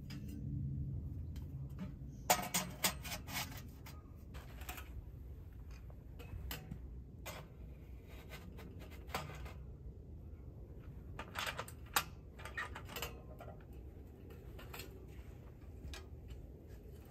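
Metal clinks and scrapes of thin steel stovepipe sections and a mesh spark arrestor being handled and slotted together, coming in scattered clusters, with the loudest knocks a couple of seconds in and again about twelve seconds in.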